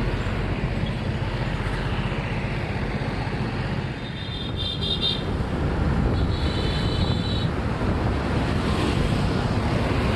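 Wind rushing over the microphone on a moving motorbike, over steady road and traffic noise. A short high-pitched tone sounds twice, about four and six seconds in.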